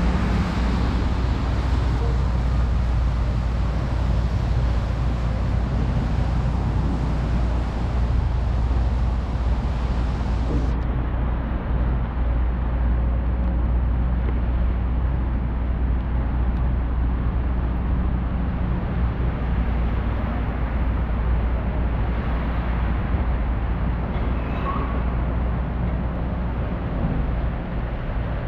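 Steady city street noise: road traffic running with a constant low rumble. The higher hiss thins out about a third of the way through.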